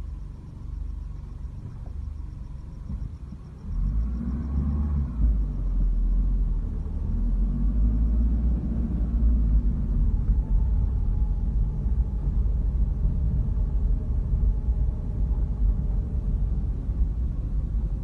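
Car driving on a road, heard from inside the cabin: a steady low engine and road rumble that gets louder about four seconds in.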